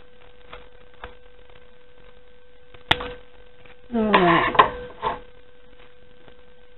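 Paper being cut with scissors: a couple of faint snips, then one sharp tap just under three seconds in as the cutting ends and pieces are set down on the wooden table. About four seconds in comes a brief vocal sound falling in pitch, among a few light taps, over a steady electrical hum.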